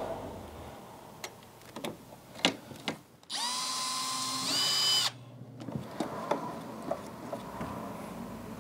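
Milwaukee cordless drill whining for about two seconds as it bores a pilot hole through a steel L-bracket into a wooden board, its pitch stepping up partway through. Faint clicks follow as the screw is turned in with a hand screwdriver.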